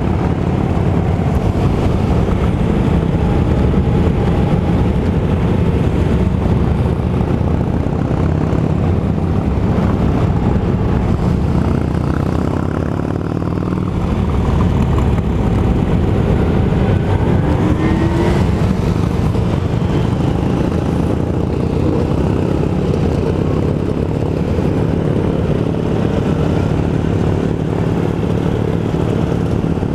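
Vespa scooter engine running while riding, mixed with the engines of a group of motorcycles following close behind. About eighteen seconds in, one engine briefly revs up.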